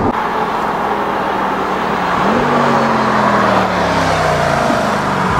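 Chevrolet C8 Corvette's 6.2-litre V8 driving past. Its note steps up about two seconds in as it accelerates, then slides slowly down in pitch as it goes by, over road and tyre noise.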